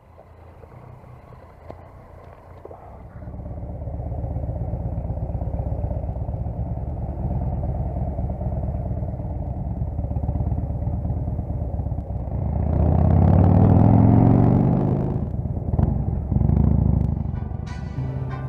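Harley-Davidson Fat Bob V-twin engine running through new Vance & Hines 3-inch slash-cut slip-on mufflers. It gets louder and settles into a steady run about three seconds in, revs up with a rising pitch around thirteen seconds in, then gives a shorter rev near the end.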